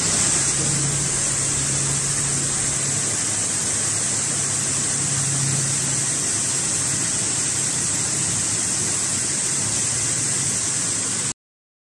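Torrential rain pouring down, a steady dense hiss with a faint low hum underneath. It cuts off suddenly near the end.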